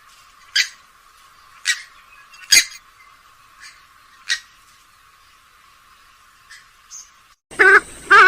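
Grey-headed swamphen calling: short, sharp call notes about one a second, then, about seven and a half seconds in, a sudden switch to a louder series of longer calls that rise and fall in pitch.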